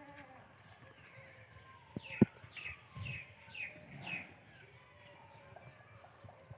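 A small bird calls a quick run of about five high notes, each sliding downward, roughly two a second. A single sharp knock sounds just after the first note.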